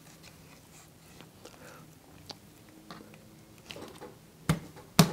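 Knife cutting along the backbone of a whole raw rainbow trout to butterfly it, with faint crackles and scrapes as the blade works past the rib bones. Near the end come two sharp knocks about half a second apart, the loudest sounds.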